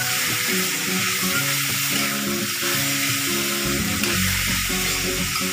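Shredded beetroot sizzling in hot oil in a pressure cooker as it is stirred with a steel spoon, a steady frying hiss. Background music plays over it, with low bass notes coming in about two-thirds of the way through.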